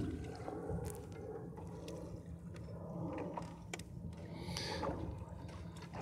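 Water washing and gurgling along the hull of a small wooden sailboat under sail, over a steady low rumble, with scattered light clicks and knocks. A brief hissing splash comes about four and a half seconds in.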